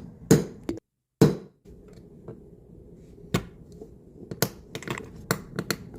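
Pins being hammered into the holes of a 3D-printed balisong's plastic parts: a string of sharp, irregular taps and knocks, with a cluster of quicker strikes in the second half.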